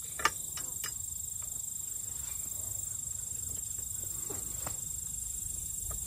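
A few light clicks of small hardware being handled, as a lag screw is set into a metal gate latch by hand; the sharpest comes about a quarter second in. Under them, a steady high insect trill, typical of crickets.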